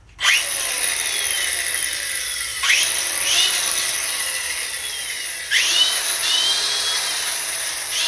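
Angle grinder fitted with a metal grinding disc switched on and spinning freely with a steady high whine. Twice, about two and a half and five and a half seconds in, it gets louder with a quick rising whine as it surges back up to speed.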